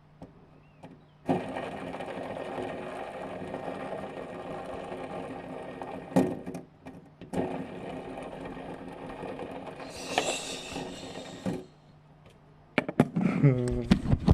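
A steady mechanical whir, like a small motor running, starts about a second in and stops after about ten seconds, with a couple of sharp knocks partway through. Near the end comes a brief voice-like sound that rises and falls in pitch.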